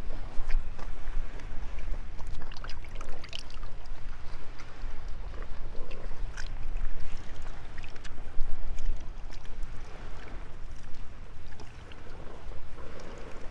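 Wind buffeting the microphone, with scattered small splashes and wet clicks as live sardines are scooped by hand from a basin of water into a bowl of soy sauce.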